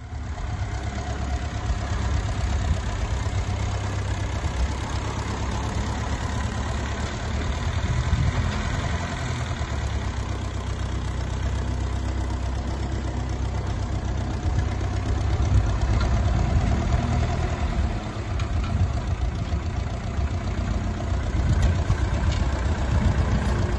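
Ferguson TEF20 tractor's four-cylinder diesel engine running steadily, with small rises and falls in loudness.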